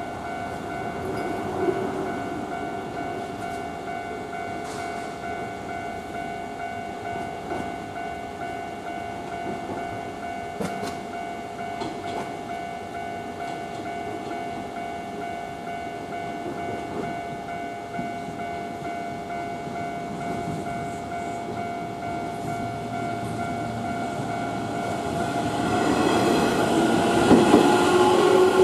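Japanese level crossing alarm ringing steadily as an electric train approaches; about 25 seconds in, the train's rumble and wheel noise build up as it reaches the crossing.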